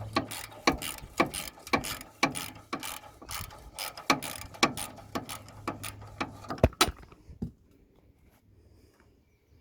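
Socket ratchet wrench clicking in quick repeated strokes as a nut is run down, stopping about seven seconds in.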